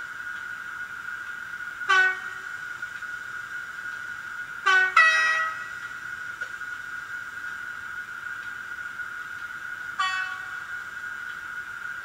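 Model-railway DCC sound decoders playing Class 91 and Mk4 DVT sounds through small onboard speakers: a steady high-pitched whine underneath, with a short horn blast about two seconds in, a two-note horn around five seconds in, and another short blast near the end.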